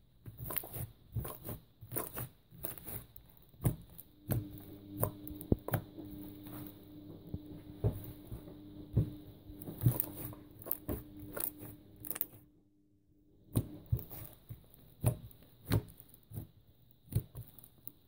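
Slime being squeezed, stretched and poked by hand, giving irregular sticky pops and clicks. A low steady hum comes in about four seconds in and stops a little before the end.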